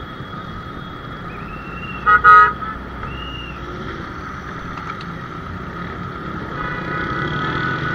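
A vehicle horn sounds in a short, loud double blast about two seconds in, over the steady running of car and motorcycle engines in traffic.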